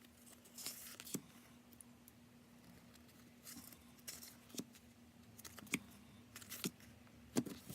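Faint, scattered rustles and light taps of sticker sheets and packaging being handled, over a faint steady hum.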